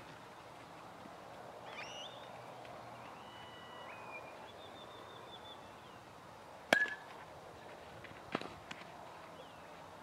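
A baseball bat sharply strikes a ball about two-thirds of the way in, a single crack with a brief ringing ping, followed about a second and a half later by a softer knock. A few faint bird chirps sound in the first half.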